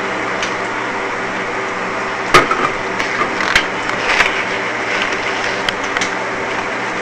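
Kitchen clatter: a few sharp clicks and knocks of utensils or cookware, the loudest about two and a half seconds in, over a steady background hum like a fan.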